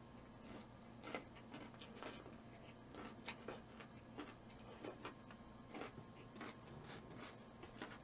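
Faint close-up eating sounds: a person chewing, with soft irregular clicks of wooden chopsticks picking at food, one or two a second.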